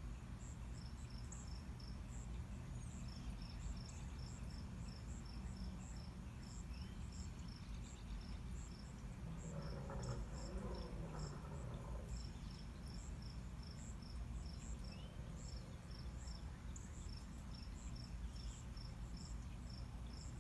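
Crickets chirping steadily, two at different pitches, each about two chirps a second, over a low steady rumble. Around halfway through, a brief, somewhat louder sound passes underneath.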